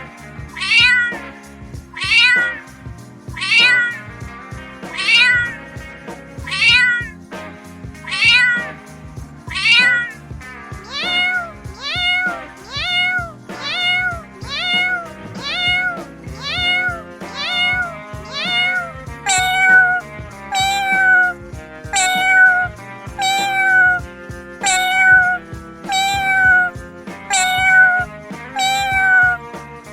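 Domestic cat meowing again and again at an even pace over background music. The meows come about every second and a half at first, then more quickly, about one a second, from about ten seconds in.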